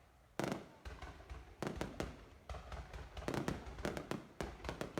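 Fireworks bursting: a rapid, irregular string of sharp bangs and pops that starts about half a second in and grows denser in the second half.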